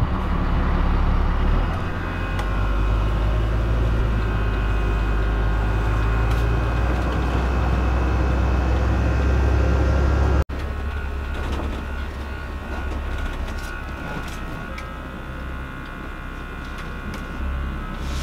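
Class A motorhome on the move: a steady low engine and road rumble from the cab, with scattered rattles. A short run of quick, evenly spaced high beeps comes partway through.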